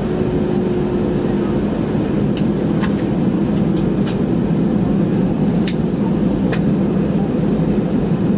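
Steady jet engine and airframe rumble heard inside an Airbus A320 cabin as the airliner rolls along the taxiway, with a handful of light clicks and rattles.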